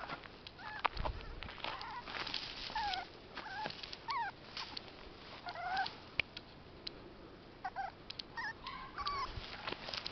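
A series of short, high, squeaky animal calls, each sliding up or down in pitch. They come singly or in pairs every second or so, with light clicks and rustles between them.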